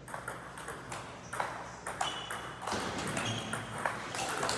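Table tennis rally: the ball clicking sharply off paddles and table, a quick series of irregular clicks, mixed with more clicks from rallies at neighbouring tables in a large hall.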